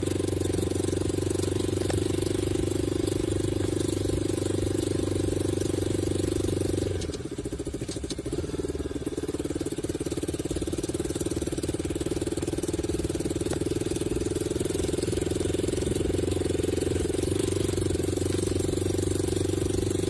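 Motorcycle engine running while riding over a rough dirt road. About seven seconds in the engine note drops and softens for a few seconds, then builds back up.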